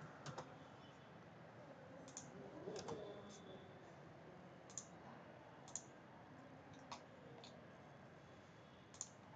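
Faint computer mouse clicks, single sharp clicks at irregular intervals of roughly a second, over near-silent room tone.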